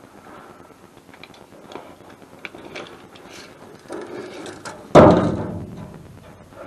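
Handling noises during furnace work: light clicks and knocks, then one loud bang about five seconds in that dies away over about a second.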